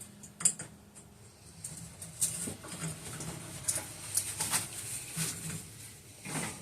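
Irregular light knocks and clatter of objects being handled and shifted about, with one sharper knock about half a second in.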